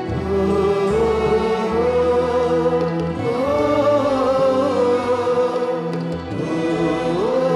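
Slow music with a singing voice carrying a long, wavering melody over held bass notes.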